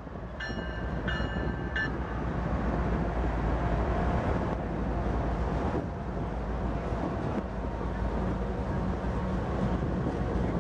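Diesel freight locomotive approaching on the near track, its engine rumble growing louder over the first few seconds and then holding. A few short high-pitched tones sound within the first two seconds.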